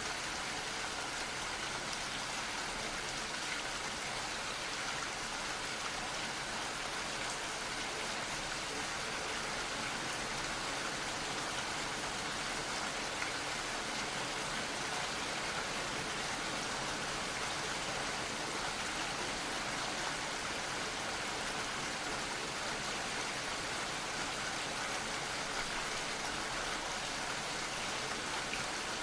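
Steady gentle rain falling, an even hiss of many small drops with faint patters and no letup.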